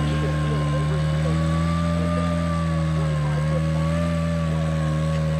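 Rock crawler buggy's engine running at a steady, held speed, its pitch wavering slightly up and down.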